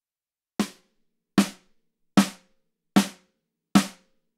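Snare drum backbeat playing back: the original snare audio track doubled by a triggered EXS24 acoustic snare sample. Five even, sharp hits a little under a second apart, each dying away quickly.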